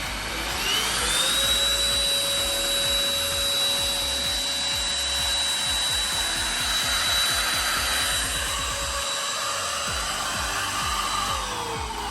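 Tefal X-NANO cordless stick vacuum cleaner's motor whining, rising in pitch about half a second in to a steady high whine. Near the end the whine falls away as the motor winds down.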